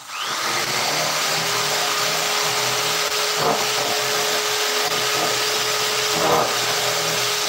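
A small electric motor spins up at the start and runs steadily at high speed: a loud rushing noise with a steady whine in it, briefly changing twice, about three and a half and six seconds in.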